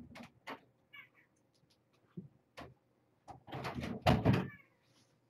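Kittens jumping, landing and scrabbling on carpeted cat-tree furniture: a run of soft knocks and scuffles, loudest in a cluster near the end, with a short high squeak about a second in.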